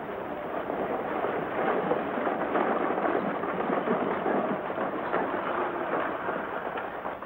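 Team of horses galloping and a stagecoach's wooden wheels rattling as it drives into a dirt street: a dense clatter of hooves that swells to its loudest mid-way and eases a little near the end. The sound is thin, as on an old film soundtrack.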